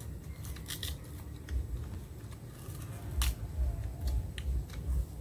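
Sugarcane being bitten and its hard rind torn off with the teeth: a few sharp cracking snaps, the loudest a little after three seconds in, with chewing between them.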